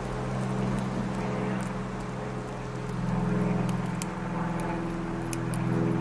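Steady machine hum with several even pitches layered together, swelling about three seconds in, with faint ticks on top.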